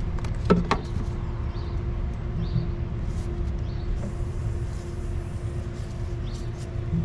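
Oil filter wrench clanking and clicking against the oil filter, with a couple of sharper metal knocks about half a second in, over a steady low rumble with a constant hum.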